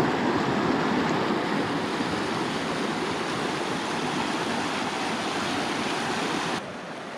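Fast mountain river rushing over a rocky, shallow riffle: a steady, dense rush of water that drops to a quieter level about six and a half seconds in.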